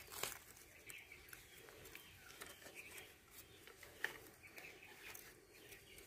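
Near silence: faint scattered clicks and scrapes of hands working the bolt of a metal earthing clamp on an earthing rod, the sharpest about four seconds in, with faint bird chirps.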